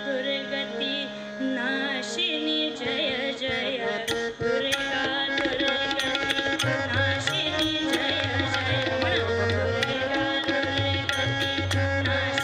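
Kirtan accompaniment music: held instrumental notes under a wavering melody, with hand-drum strokes joining about four seconds in and deep bass drum strokes from about six and a half seconds on.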